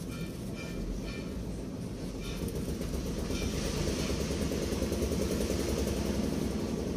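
Steady low rumble of a nearby running engine, with a few short, evenly spaced high tones in the first two seconds and a hiss that rises over it about three seconds in.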